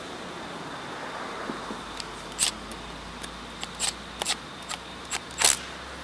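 Small sharp clicks and taps at irregular intervals, about seven of them starting about two seconds in, as the parts of a Honda GCV160 carburetor are handled and fitted back together.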